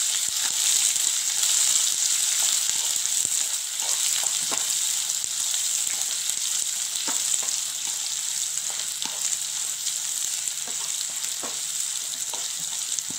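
Sliced onions, garlic, dried red chillies and curry leaves sizzling in hot oil in a kadai as they are sautéed, stirred with a wooden spatula that clicks and scrapes against the pan now and then.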